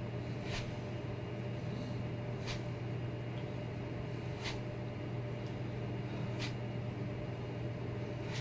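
A steady low hum fills the room, with a faint click about every two seconds, in time with slow arm circles made with wrist weights.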